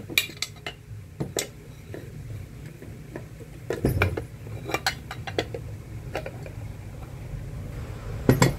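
Metal pressure-cooker lid being handled and set against the vise and tools: scattered clinks and knocks of metal on metal, the loudest near the end.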